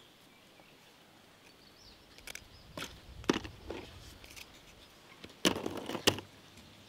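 Scattered sharp clicks and clatters of hard Oreo cookies knocking together as they are handled on a heap, starting about two seconds in, with two louder clicks near the end.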